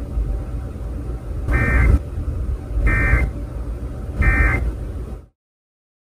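Emergency Alert System end-of-message data tones from an FM radio broadcast: three short buzzy bursts of digital data about a second and a half apart, over a steady low rumble. The sound cuts off suddenly near the end.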